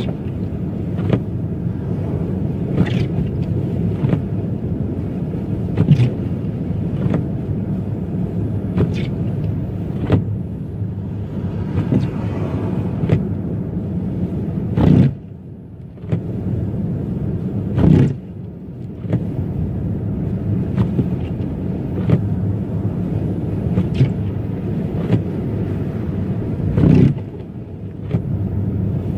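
Car driving, with steady engine and road rumble. Short sharp knocks come every second or two, and the rumble dips briefly twice.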